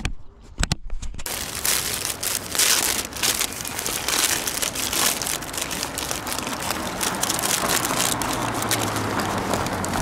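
Paper sandwich wrapper being handled and peeled back, a dense continuous crinkling and crackling starting about a second in.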